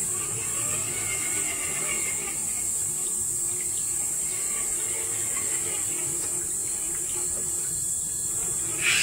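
Shallow stream trickling over rocks, with insects chirring in a constant high-pitched hiss behind it.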